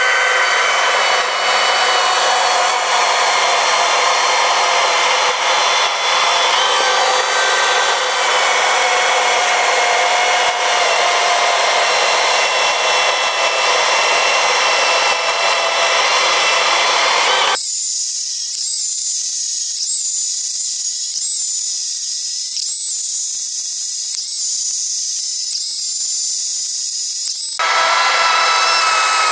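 Makita UC012G 40V cordless chainsaw running at full speed under load, its chain cutting through a 25 cm log. For about ten seconds in the second half the low and middle of the sound drop away, leaving only a thin high hiss with a faint chirp roughly once a second, before the full saw sound returns.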